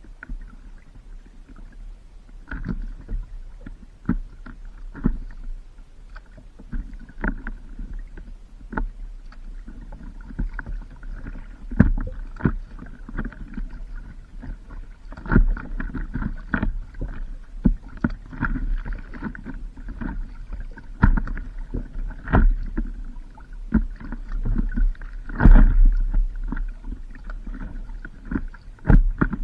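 Stand-up paddleboard on the water: irregular splashes and knocks of water and paddle against the board, every half second to a second, over a steady low rumble.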